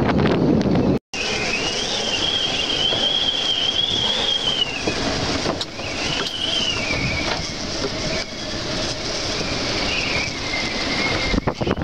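Strong wind blowing over the microphone, with a high wavering whistle that rises and falls in gusts, breaking off three times.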